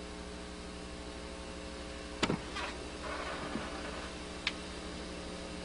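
Steady low electrical hum and hiss, with a faint click about two seconds in and another about four and a half seconds in.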